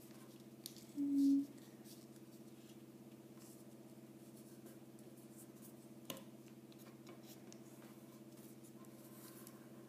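Origami paper handled and creased by hand: faint rustles and a few soft taps over a steady low hum. A short, loud low hum comes about a second in.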